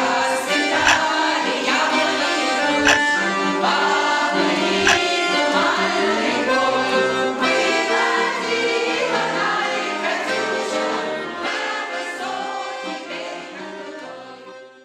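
Piano accordion playing a tune with sustained chords, fading out over the last few seconds.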